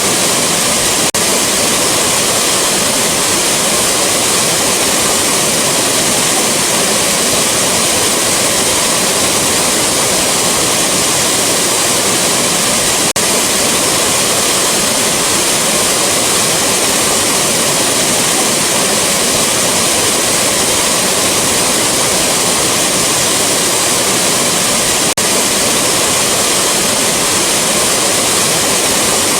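Rushing waterfall: a loud, steady roar of falling water, with a faint momentary dip about every twelve seconds where the recording loops.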